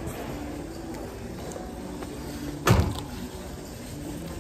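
A large shrink-wrapped cardboard flat-pack furniture box being hauled off a shelf, with one short loud thump about two-thirds of the way through over a low steady background hum.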